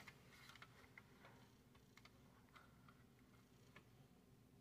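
Near silence: room tone with a few faint, scattered light clicks from a die-cast model car being handled on a tabletop.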